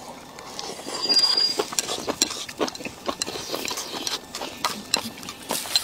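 A person eating from a bowl with chopsticks: a louder slurp about a second in, then chewing with many irregular small clicks and taps.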